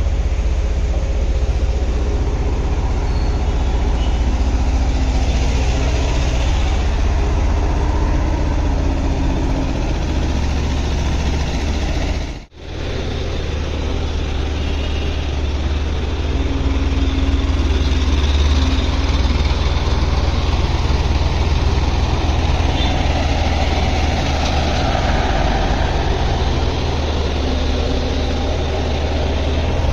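Diesel engines of Tata Hitachi hydraulic excavators running steadily, a heavy low engine sound. It cuts out for a moment about twelve seconds in.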